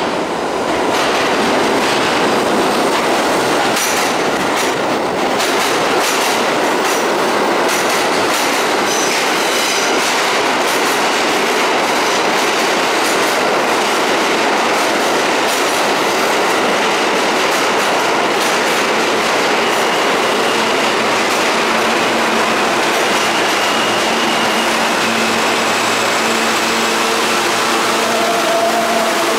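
Kawasaki-built R68A subway train pulling into an underground station, a loud steady rumble of wheels on rail with rapid clicking over the rail joints as the cars pass. Near the end, faint steady whines come in as the train slows to a stop.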